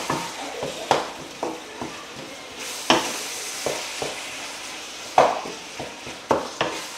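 Minced meat and grated vegetables sizzling in a frying pan as they are stirred, with a steady hiss of frying and scattered sharp knocks and scrapes of the utensil against the pan.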